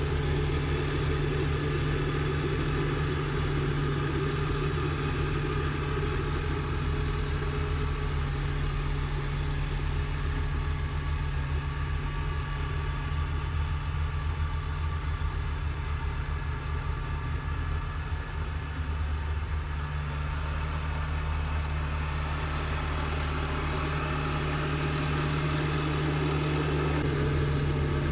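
Kubota BX2230D compact tractor's three-cylinder diesel engine running steadily, with a constant low hum.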